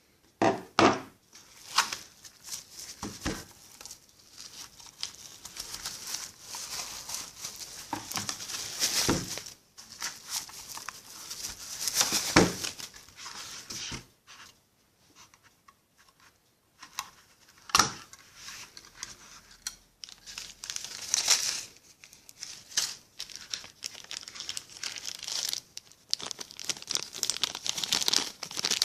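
Packaging being unwrapped by hand: wrapping crinkling and tearing in irregular spells, with a few sharp knocks and a short pause about halfway.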